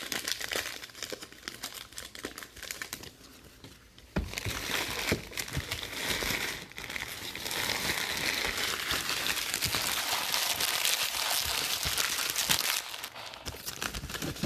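Plastic wrappers of 2019 Allen & Ginter baseball card packs crinkling as packs are torn open and the cards handled. The crinkling is lighter for the first few seconds, then dense and continuous from about four seconds in.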